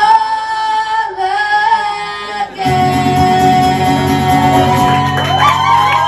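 Live song: a woman sings long held notes to her own acoustic guitar, and about two and a half seconds in the guitar comes in fuller and louder under the voice.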